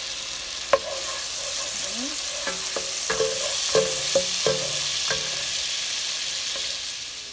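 Minced garlic sizzling in melted butter in a pot, stirred with a utensil that clicks and scrapes against the pan several times, most often in the middle. The sizzle drops a little near the end.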